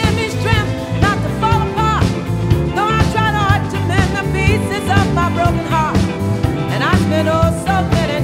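Background music: a song with a sung melody over a steady beat.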